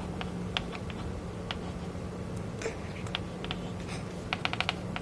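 Chalk tapping and clicking on a blackboard while a structure is drawn, with scattered single clicks and a quick run of taps near the end, over a steady low hum.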